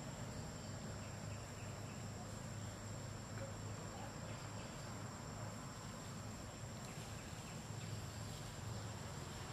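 Steady high-pitched insect trill, unbroken throughout, over a low steady hum.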